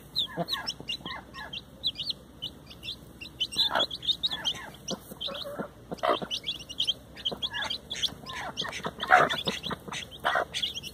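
Domestic chicks peeping constantly in quick, high chirps while their mother hen gives short, low clucks among them every second or two, the loudest clucks near the end.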